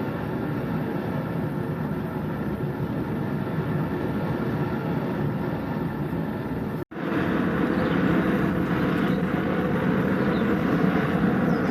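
Forge running with a steady roar. It cuts out for an instant about seven seconds in, then resumes a little louder.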